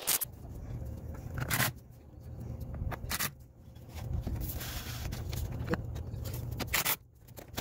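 Scattered knocks and scrapes of a metal cover cap being set and pressed onto an aluminium frame base on a trailer's side, over a low, steady rumble.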